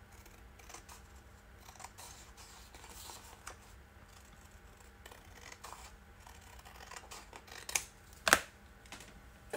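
Scissors cutting down the edge of a sheet of paper: a run of soft, quiet snips, with two sharper, louder snips near the end.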